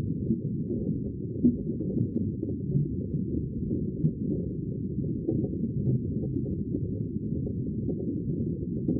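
Sea water sounds: a deep, muffled, steady rumble of moving water, with small uneven swells but no distinct breaking waves and none of the usual bright hiss.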